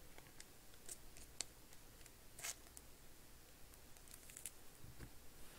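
Faint rustling and a few short scratchy crinkles of a thin clear plastic card sleeve being handled as a trading card is slid into it, the clearest about one and a half and two and a half seconds in.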